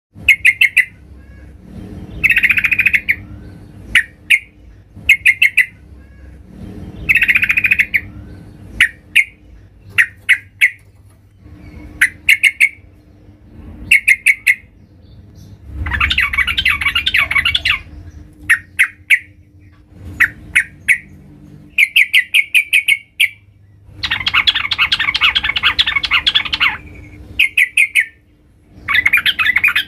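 Sooty-headed bulbul (trucukan) calling, which the recording presents as a female calling to a male. Short clusters of quick chirps come every second or two, broken by two longer, harsher chattering bouts, one about halfway through and one near the end.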